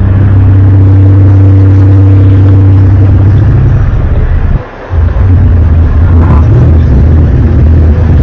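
Loud, deep droning hum of the kind reported as a mysterious 'strange sound' from the sky, holding a steady low pitch. It cuts out briefly a little past halfway, then comes back with a wavering pitch.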